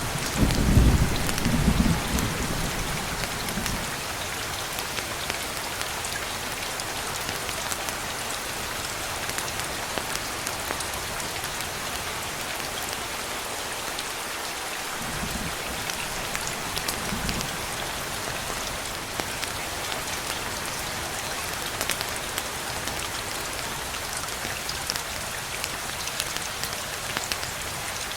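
Steady rain falling, with a low rumble of thunder dying away over the first few seconds and two faint low rumbles about halfway through.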